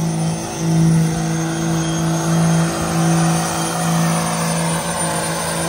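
Lifted truck on 64-inch tires doing a burnout, its engine held at high revs in a steady drone that dips briefly a few times, over a rushing haze from the spinning tires.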